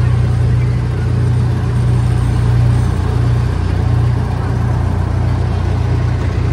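Miniature park train's locomotive engine running steadily as the train rolls along the track: a constant low hum over a rumbling noise.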